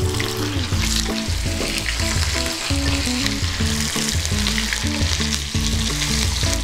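Batter-coated morcilla fritters deep-frying in hot oil in a saucepan, with a steady sizzle and bubble, as they are stirred with a slotted skimmer. Light background music runs underneath.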